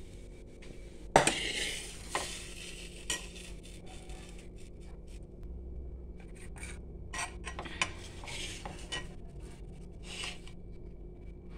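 Stainless steel bowls and plates clattering on a kitchen counter: a sharp clank about a second in, two more knocks soon after, then scattered lighter clinks.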